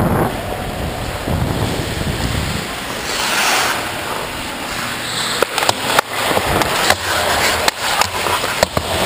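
Hockey skate blades scraping and carving the ice with wind rush on the moving camera, a brighter hiss about three seconds in like a skate stop spraying ice, then a run of sharp clacks of sticks and puck against the ice and boards.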